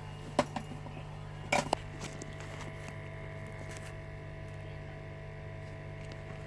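Steady low electrical hum from the repair bench, with a few small sharp clicks about half a second and a second and a half in.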